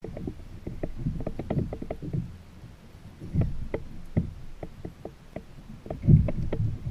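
Water slapping and lapping against a kayak hull, with irregular knocks and splashes, the loudest slaps about three and a half seconds in and again near the end.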